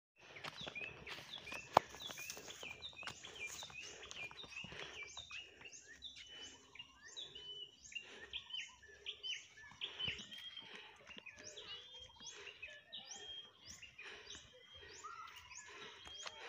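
Birds chirping over faint outdoor background noise, many short notes repeated in quick series, about two a second through the second half. A single sharp click about two seconds in.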